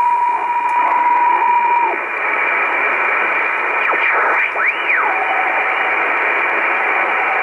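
Shortwave receiver in upper sideband giving out band hiss with the steady tone of an HF weather fax signal, which stops about two seconds in. As the tuning dial is turned, a whistle glides up and back down around four to five seconds in and then settles into a steady lower tone.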